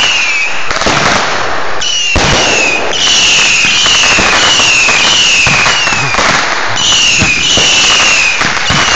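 Consumer fireworks going off in quick succession: a run of shrill whistles, each falling in pitch, about one a second, over steady crackling and sharp pops.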